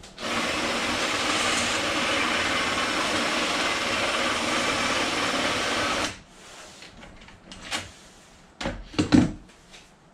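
Cordless drill running steadily for about six seconds, driving a long extension shaft into the end of a stack of Nissan Leaf battery modules, then stopping. A few knocks and a short loud clatter follow near the end.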